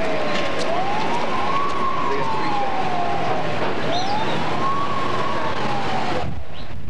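Siren wailing: its pitch rises quickly and falls slowly, about two full cycles, then cuts off suddenly near the end.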